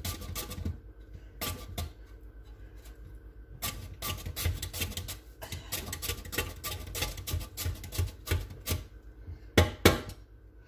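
Potato being sliced on the slicing blade of a metal box grater: quick repeated scraping strokes with a couple of short pauses, and two louder knocks near the end.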